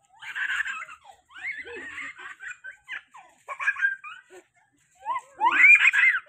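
A small child's high-pitched giggling and squealing laughter in short bursts, loudest near the end.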